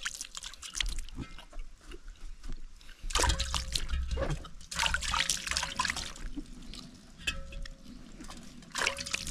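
Water splashing and trickling in several irregular bursts, the loudest about three to six seconds in.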